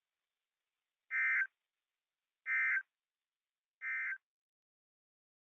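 Three short bursts of Emergency Alert System SAME data tones, a harsh two-tone buzz each lasting a fraction of a second, about a second and a half apart: the end-of-message code that closes an alert broadcast.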